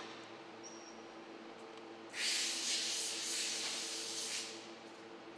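A soft, even hiss lasting about two seconds, starting about two seconds in, over a faint steady hum.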